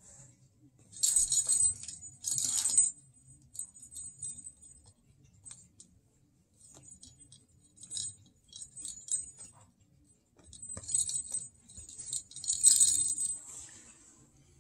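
Bell inside a cat's toy ball jingling in irregular bursts as a cat bats and rolls it, loudest about a second in and again near the end.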